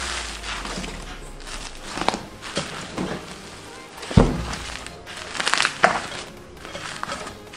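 Crunchy slime being squeezed and kneaded by hand in a glass bowl: irregular crackling and squelching pops, with one louder thunk about four seconds in, over background music.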